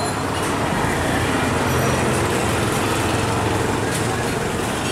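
Street traffic noise with a motor vehicle's engine running close by, its low hum swelling about one and a half seconds in.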